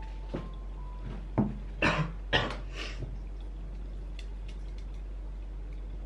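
A few short knocks and rustles from a book and papers being handled and set down on a wooden desk, clustered between one and three seconds in, over a low steady hum.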